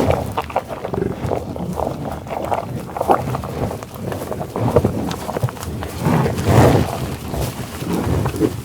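Buffalo growling with low, rough calls, repeated again and again, loudest about six to seven seconds in.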